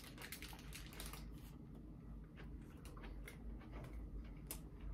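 Faint, irregular clicks and crackles of a man chewing a mouthful of cheeseburger, with its paper wrapper rustling in his hands.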